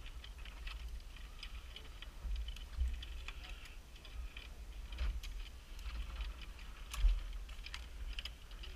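Irregular light metal clicks and clinks of climbing harness gear, such as safety carabiners and a pulley against the course's steel cable, with a louder knock about seven seconds in.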